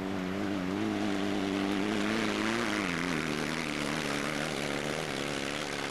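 Off-road racing vehicle's engine running hard under load, a steady drone whose pitch drops about halfway through.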